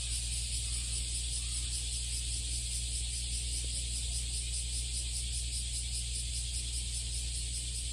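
Chorus of cicadas: a steady, high, many-voiced buzzing with a fine rapid pulse, over a constant low hum.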